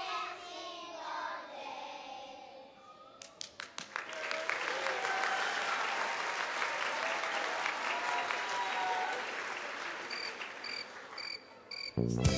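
A children's choir sings its last notes, then audience applause starts with a few scattered claps about three seconds in and builds into steady clapping. The applause dies away and instrumental music starts near the end.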